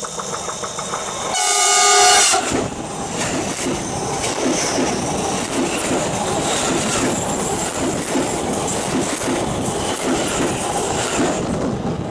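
Electric commuter train sounding its horn for under a second, then running directly overhead. The rumble of its wheels and running gear is full of repeated clacks from the rails, and it begins to fade near the end.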